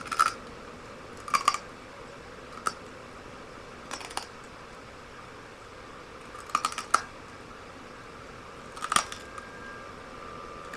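Light bulb glass crunching between teeth as it is chewed slowly: short, sharp crunches in small clusters, one every second or two.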